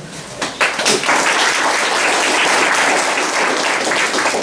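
Audience applauding: a few separate claps about half a second in, quickly building into steady applause.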